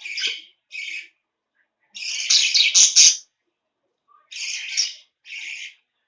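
Baby budgerigar's harsh, raspy begging calls: a hungry chick asking to be fed. Five separate calls, the longest and loudest lasting about a second, a third of the way in.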